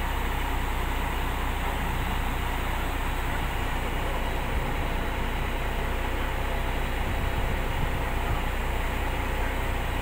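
Heavy diesel engine running steadily at idle, a constant low hum with no change in speed.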